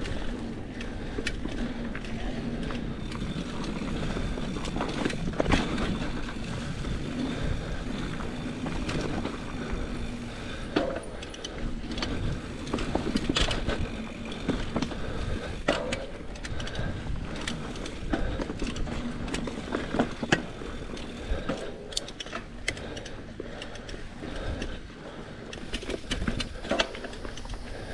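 Mountain bike ridden over a sandy trail: tyres crunching through sand under a steady rolling rumble, the chain and drivetrain rattling, with frequent sharp clicks and knocks from bumps.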